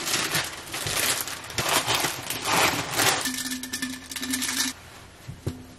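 Paper wrapping around a bouquet of flowers crinkling and rustling as it is handled and pulled away from the stems, dying down in the last second or so.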